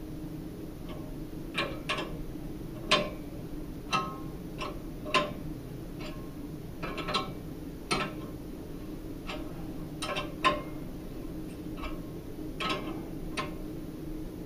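A wrench clicking and clinking against the steel nuts of a U-bolt as they are tightened onto a pole-mounting bracket, alternating between the two bolts. The metallic ticks come irregularly, about one a second.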